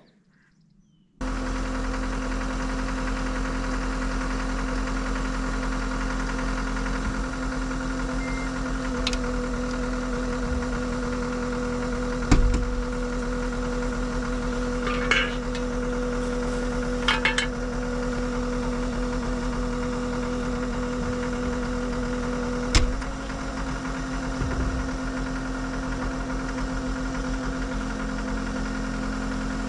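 Diesel engine of heavy equipment running steadily at a constant speed, with a few sharp metal knocks and short clatters. The engine note shifts slightly with a clunk about 23 seconds in.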